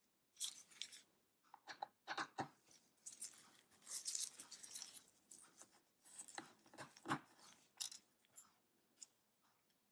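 A JIS #1 screwdriver backing out the bottom-cover screws of an Acer Nitro 18 AI laptop: faint, irregular clicking and scraping of the bit in the screw heads against the plastic case, with gloved hands rubbing over the cover.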